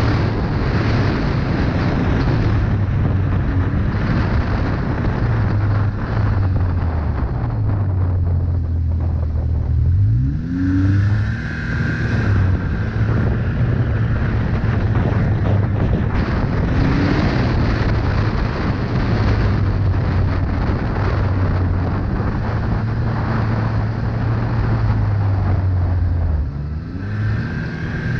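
Snowmobile engine running under throttle along a trail at a mostly steady pitch. The engine eases off about ten seconds in, then revs back up, and does so again near the end.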